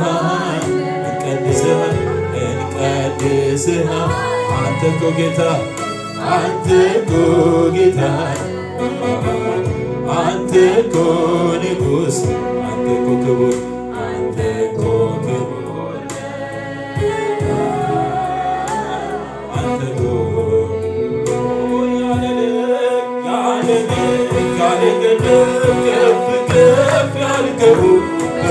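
Amharic gospel worship song: a man sings lead into a microphone over keyboard accompaniment with a steady bass line.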